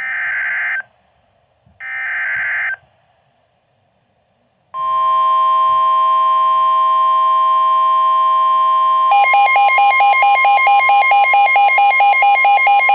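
Emergency Alert System alert being received on NOAA Weather Radio: two short buzzy digital header bursts about a second apart, then after a pause the steady weather radio warning alarm tone. About four seconds later a fast pulsing electronic alarm beep joins the steady tone.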